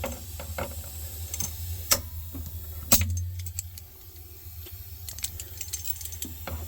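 Pinch-off pliers clicking and clinking against a refrigerator's copper capillary tube line as they are set on it to stop the nitrogen flow. Two sharper knocks come about two and three seconds in, over a steady low hum.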